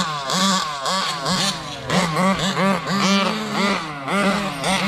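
Large-scale RC trucks' big-bore two-stroke gas engines run at full throttle with repeated throttle blips. More than one engine can be heard at once, each pitch rising and falling about twice a second.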